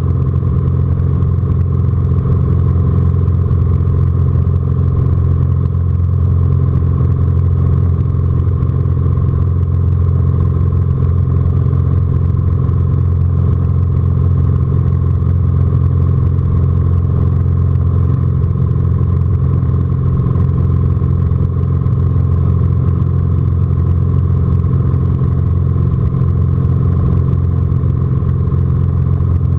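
Socata Rallye 235's six-cylinder 235 hp boxer engine and propeller running steadily under load, heard inside the cockpit, as the plane takes off and climbs with a glider in tow.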